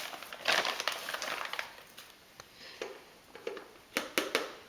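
Flour being scooped and poured with a measuring cup, with rustling and crinkling from the flour bag, then a few sharp knocks about four seconds in.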